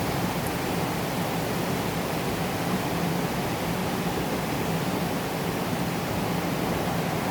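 Steady moderate rain falling, an even hiss with no thunder.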